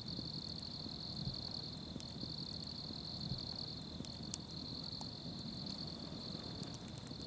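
Crickets chirping, a steady high-pitched trill that runs on without a break, over a faint background hum of outdoor noise.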